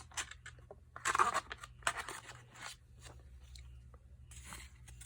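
Packaging rustling and crinkling in short, irregular bursts as an item is pulled out of a cardboard box, the loudest crackle about a second in.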